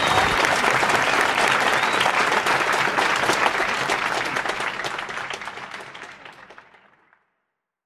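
Audience applause, a dense patter of many hands clapping, that fades out over the last few seconds and is gone about seven seconds in.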